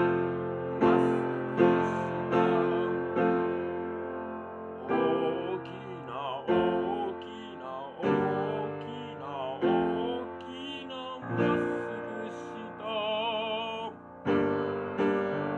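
Piano-led music of a children's song, with chords struck on a steady beat. A wavering melody line with vibrato is laid over the piano through the middle.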